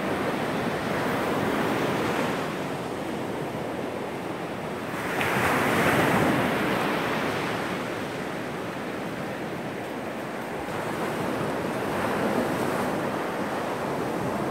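Surf breaking on a sandy beach, with waves washing in and swelling every few seconds. The loudest wave breaks about five seconds in.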